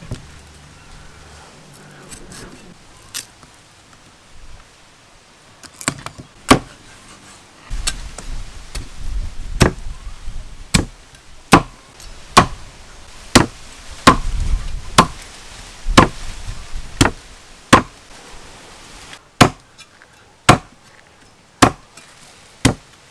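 Steel cleaver chopping a grilled duck into pieces on a thick round wooden chopping block. Sharp, evenly spaced chops come about once a second from a few seconds in, after a few light knocks, with a low rumble under the middle stretch.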